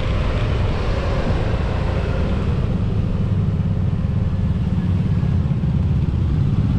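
Motorbike riding in traffic, heard from the rider's seat: a steady mix of engine and road noise that holds even throughout.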